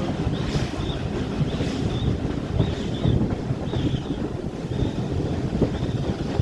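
Railway carriage running along behind a steam locomotive: a steady rumble of wheels on the rails with wind buffeting the microphone, and a faint high chirp repeating about once a second.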